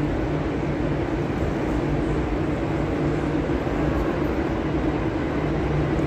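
Train running at a station platform: a steady rumble with a low hum that holds even throughout.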